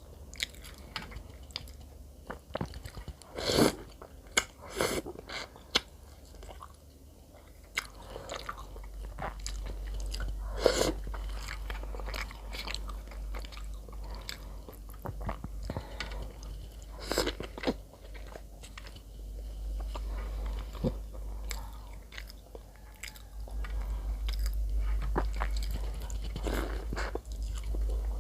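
Close-miked biting and chewing of bakery bread, with scattered crisp crunches and no speech. A low hum comes in about a third of the way through and grows louder near the end.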